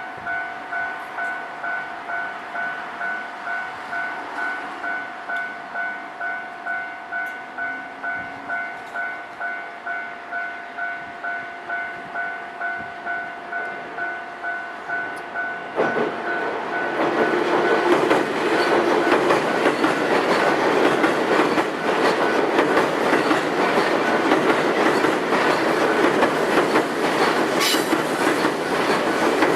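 Japanese level-crossing warning bell ringing in even, rapid strokes, about two a second. About 16 s in, a train arrives and runs past close by, wheels clattering over the rail joints, and the train noise drowns out the bell.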